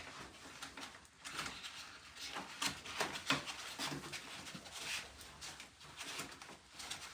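Irregular clicks, knocks and rustles of hands handling the mini split's refrigerant line set and condensate line.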